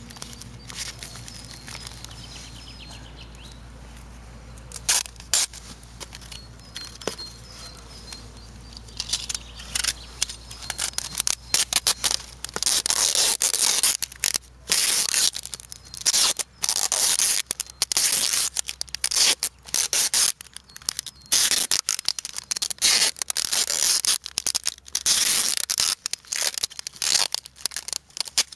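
Brown packing tape pulled off its roll in repeated screeching strips as it is wound around a paper-wrapped firework cake. Quieter rustling and handling come first; the loud tape pulls start about nine seconds in and come in quick runs.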